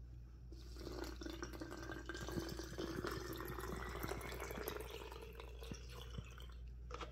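Water poured through a plastic funnel into a plastic squeeze bottle, starting about half a second in. Its tone rises steadily as the bottle fills.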